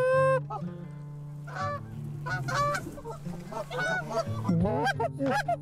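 Canada geese honking as a flock comes in over the decoys and lands. The honks are spaced out at first and come in a quicker run near the end.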